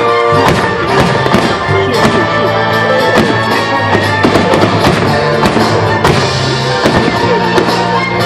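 Fireworks bursting in quick succession, many sharp bangs and crackles, over loud music.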